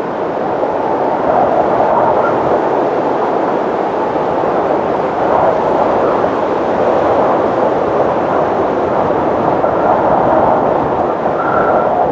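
Wind sound effect: strong wind blowing steadily, a dense rushing noise that swells and eases slightly, with a faint short whistle near the end.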